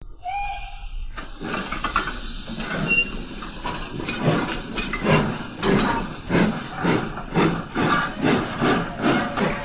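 The digital steam sound of a model LSWR B4 0-4-0 tank engine as it pulls away. A brief high tone comes near the start, then a hiss of steam from about a second in, then regular exhaust chuffs at roughly two to three a second.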